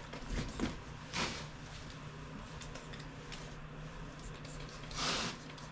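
Soapy water being worked along the edge of a dirt bike tire as bead lubricant: a few brief wet, hissy sounds, the longest near the end, over a faint steady hum.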